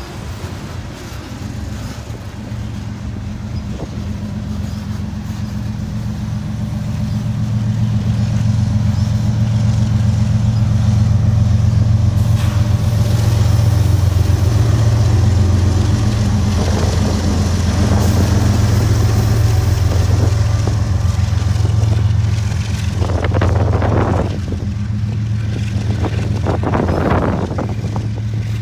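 A freight train passes close by. A mid-train diesel locomotive's engine drones low and steady, growing louder and peaking about halfway through. Under it runs the rumble of tank cars on the rails, with a few short, louder rattles near the end.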